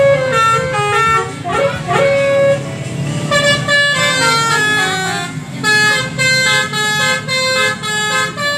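Basuri musical horn playing a tune of short pitched notes in quick succession, over a steady low engine hum.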